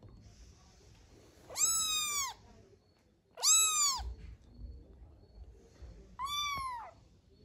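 Kitten meowing three times: high-pitched mews, each under a second long, rising then falling in pitch.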